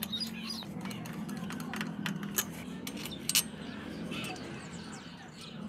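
Small metal bicycle parts clicking and clinking as a kickstand bracket and its bolts are handled and fitted to a steel frame: irregular sharp clicks, the loudest two about two and three seconds in.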